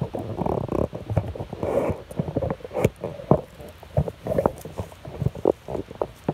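Handling noise from a phone microphone being carried and set down: many irregular knocks, rubs and footsteps close to the microphone.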